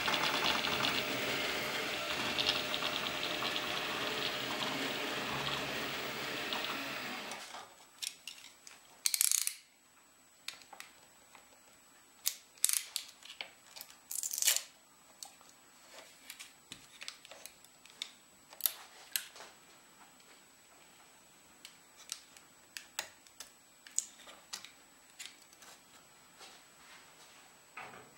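A 3D printer runs steadily for about seven seconds, then stops abruptly. After that, a blade pries a PLA print off the printer's bed plate, giving scattered sharp clicks, taps and a few short scrapes.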